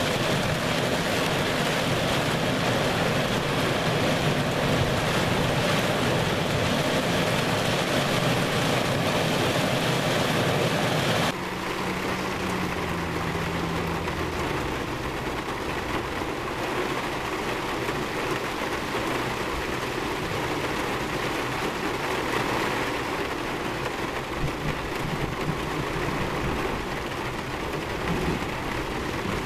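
Heavy rain and wind beating against a car, heard from inside the cabin. About eleven seconds in it cuts abruptly to quieter, steady rain on the car with a low hum from the vehicle underneath.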